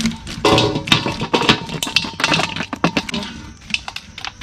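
Irregular clicking and clattering as snails and small fish are shaken out of a net fish trap into an aluminium basin.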